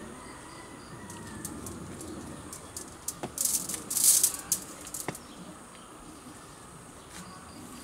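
Rustling and sharp clicks as the bare branches of a ficus bonsai are handled and worked, loudest in a short burst about three to four seconds in. A bird calls faintly near the start.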